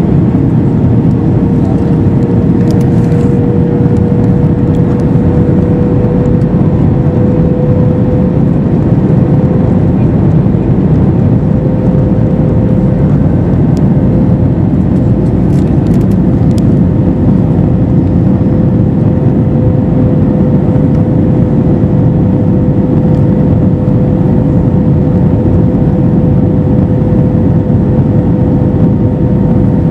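Airbus A321-212 cabin noise in flight: the steady drone of the CFM56 turbofan engines and rushing air, with a steady hum on top.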